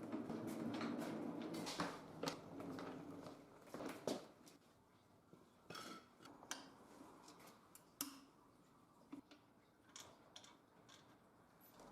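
Small tools and metal parts being handled, with a scraping rustle for the first three seconds, then a scatter of separate clicks and knocks.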